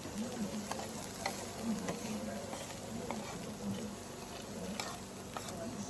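Garlic and onion sizzling in butter in a skillet, stirred with chopsticks that click against the pan now and then.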